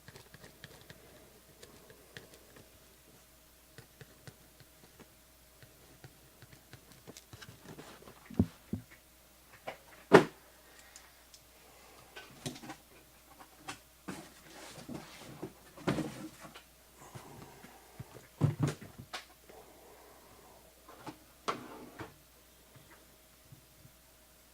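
Packaging being handled and opened by hand: scattered rustles and scrapes, with a few sharp knocks, the loudest about ten seconds in and again near eighteen seconds.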